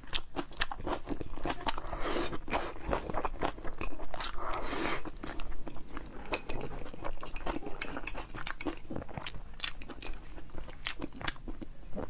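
Close-miked chewing of a mouthful of meat and rice, with many sharp wet mouth clicks and bites.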